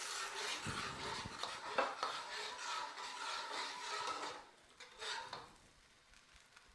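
Metal wok spatula stirring and scraping a coconut-milk curry sauce around a wok, in repeated strokes. The stirring stops about four and a half seconds in, with one more short scrape about half a second later.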